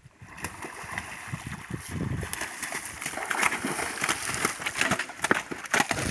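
Water splashing and sloshing in a run of irregular splashes that grows louder.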